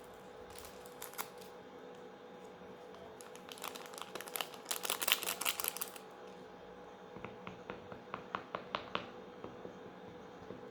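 Egg whites, cornstarch and baking powder being beaten by hand in a bowl: a rapid run of clicking utensil strokes against the bowl a few seconds in, then slower separate ticks of about four a second, as the mixture is whipped toward a cream.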